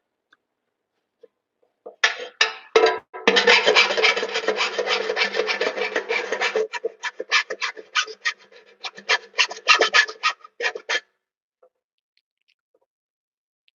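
Hand file rasping across the cut edge of a metal electrical box, smoothing off sharp edges. After about two seconds of quiet it files in a dense continuous run for several seconds, then in separate back-and-forth strokes that stop about three seconds before the end.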